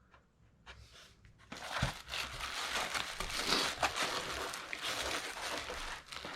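Packaging crinkling and rustling as it is handled and pulled open, starting about a second and a half in.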